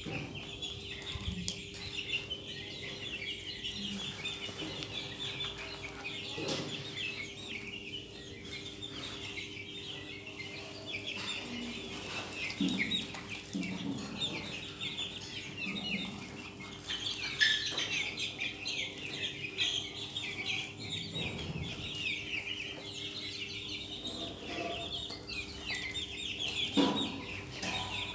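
A flock of young Australorp chickens: constant high-pitched chirping and peeping, with occasional low clucks. A steady low hum runs underneath.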